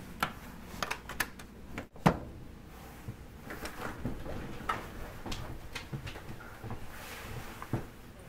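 Clicks and knocks of a door being opened: a knob and latch turned and the door swung open, then a storm door handled. The sharpest knock comes about two seconds in, with lighter clicks after it.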